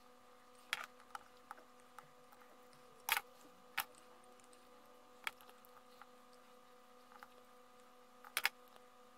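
Carving knife slicing shavings off a small butternut pen blank: short, crisp cutting clicks at irregular intervals, with a louder pair of cuts near the end. A faint steady hum runs underneath.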